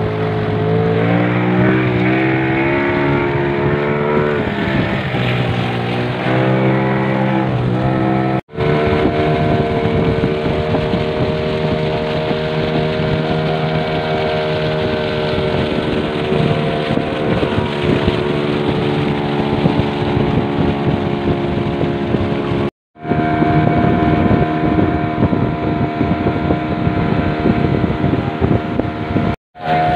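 Engine of a long wooden river boat running at speed, a steady pitched drone that rises and falls over the first few seconds and then holds steady. It cuts out abruptly three times, for a moment each time.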